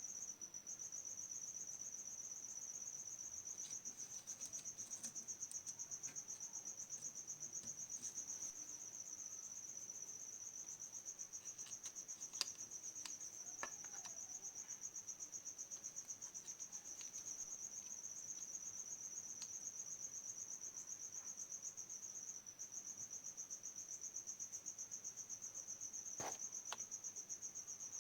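A steady, high-pitched, finely pulsing insect trill, like a cricket chirring, with a few faint clicks from small handling noises.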